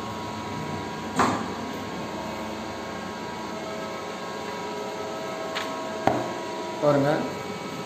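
Steady machine hum with a knock about a second in as the finished part is taken out of the CNC lathe's chuck, then a light click and another knock of handling near the end.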